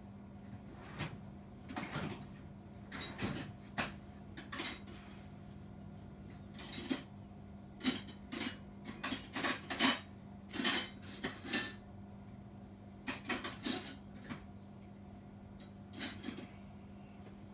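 Metal sockets and wrenches clinking and clattering as hand tools are picked through and handled: scattered sharp metallic clinks, busiest and loudest partway through.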